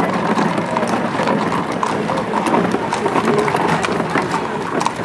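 Hooves of several horses clip-clopping on a paved road, an irregular clatter of hoofbeats over background chatter.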